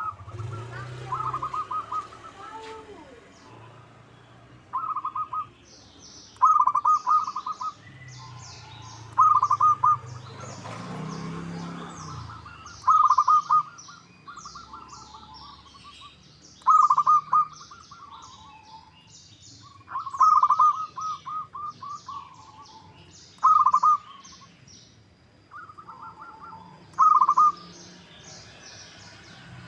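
Zebra dove (perkutut) singing its rapid, pulsed cooing phrase over and over, a loud short burst every two to four seconds, with small birds chirping high in the background.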